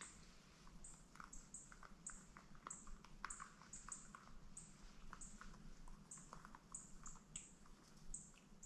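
Near silence with faint, high-pitched animal chirps repeating about twice a second, and scattered soft clicks and ticks.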